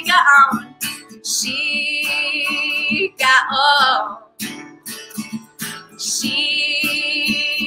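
Acoustic guitar strummed in a steady rhythm, with long high held notes over it twice and a short wordless vocal phrase between them.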